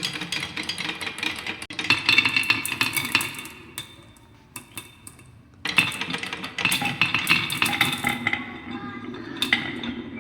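Close-up eating sounds: utensils clinking and scraping against a food container, amid busy clicking and rattling. There is a quiet pause of about a second and a half in the middle.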